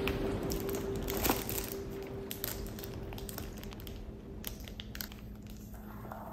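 Cellophane wrap on a perfume box crinkling as the box is handled, with scattered light crackles and taps. Soft background music with held notes fades out in the first few seconds.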